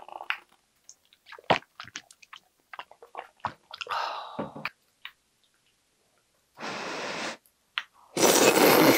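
A few light clinks of ice in a glass of cider, then, about eight seconds in, loud slurping of glass noodles (dangmyeon) eaten with chopsticks.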